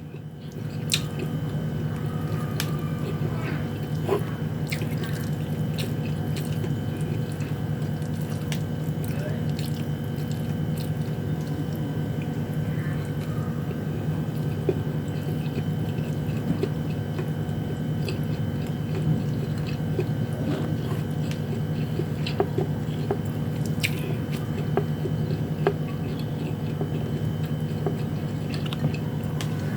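Close-up chewing and mouth sounds of someone eating sardines and rice, with many small scattered clicks, over a steady low hum.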